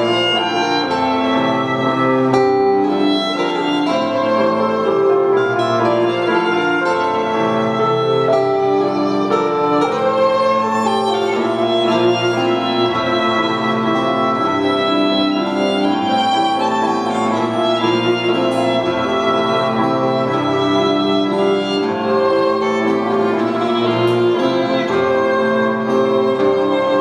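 Instrumental chamber music played live: a violin carries a flowing melody over cello and piano. The music goes on steadily and loudly throughout.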